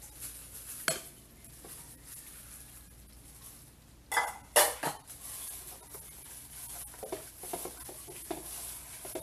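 Raw pork steaks being laid into soy-sauce marinade in a stainless steel mixing bowl: a clink just under a second in, a louder clatter of dish against bowl about four seconds in, then a run of small irregular knocks and rustles as hands mix the meat through the marinade.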